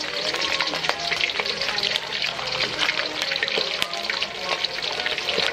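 Whole fresh mackerel deep-frying in hot oil: a steady sizzle with many small crackles and pops of spattering oil.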